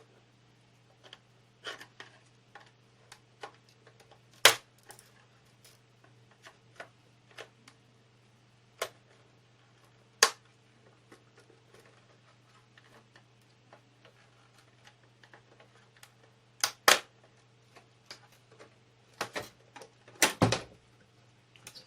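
Clicks, snaps and knocks of an Asus VH192D monitor's plastic case being pried open, its stubborn clips letting go one by one. The clicks come irregularly, with a few loud sharp cracks at about four, ten, seventeen and twenty seconds in.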